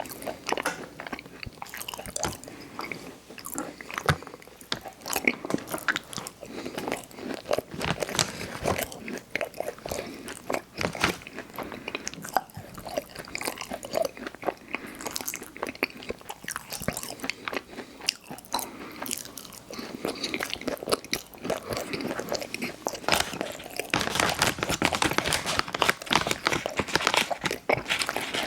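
Close-miked eating: bites and chewing of soft chewy chocolate cookies with cream filling, a continuous run of irregular crunchy clicks and moist crackles, busier in the last few seconds.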